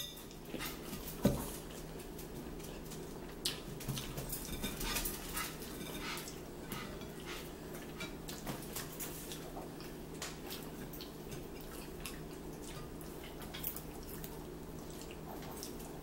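Eating at a table: scattered small clicks and taps of a fork and fingers against plates, with a sharper knock about a second in, over a steady low hum.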